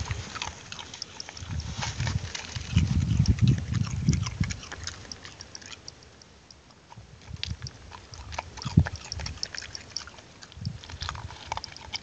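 A dog cracking and chewing a walnut, with sharp crunches and clicks of shell between its teeth; the loudest crack comes about nine seconds in.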